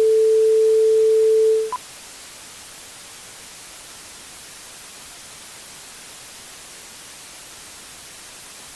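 A loud, steady electronic beep tone holds for just under two seconds and stops, followed by a brief higher blip. It is followed by steady static hiss from the mock emergency broadcast.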